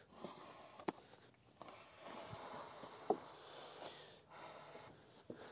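Quiet handling of a wooden beam: a few light knocks and faint rustling as it is shifted against the wooden gantry frame.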